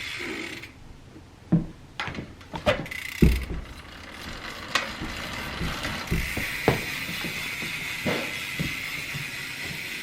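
Irregular metal clicks and knocks of hand tools working on a BMX bike's pedal. A cluster of sharp knocks comes in the first few seconds, then scattered clicks.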